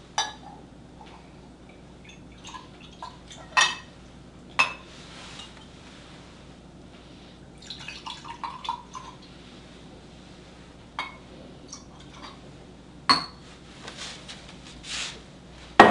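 Glass mugs and a liqueur bottle clinking and knocking, a sharp clink every few seconds, with coffee liqueur poured from the bottle into a glass mug about eight seconds in.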